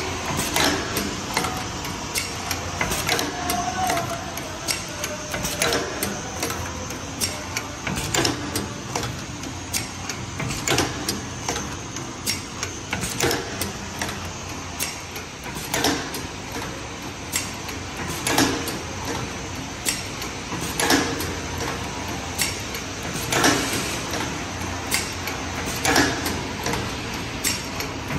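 Automatic paper cake-cup forming machine running, with a sharp clack about every two and a half seconds and lighter clicks and rattles between them, over a steady mechanical din.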